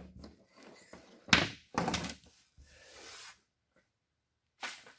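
Hand tools and wire being handled on a workbench: a few sharp knocks, the sharpest about a second in and more near the end, and a short rustle of a wire bundle being moved.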